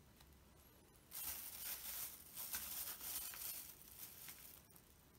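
A crinkling, rustling noise that starts about a second in, comes and goes unevenly for about three and a half seconds, then stops.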